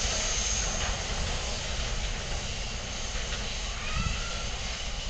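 Kawasaki-built R160 subway train running on the track with a steady rumble and rail noise that slowly fades as it pulls away. A faint rising motor whine comes in about three seconds in.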